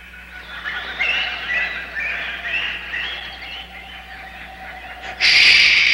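Cartoon jungle sound effects: chirping, warbling bird-like calls, then a loud hissing burst about five seconds in that lasts over a second.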